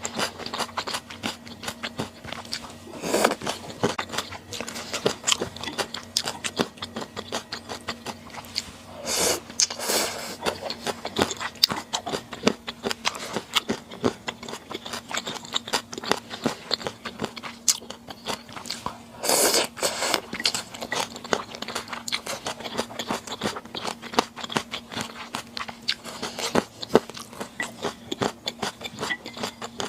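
Close-miked chewing: a person eating with many small wet mouth clicks and bites. Louder, longer bursts of eating sound come about three seconds in, around nine to ten seconds, and near twenty seconds.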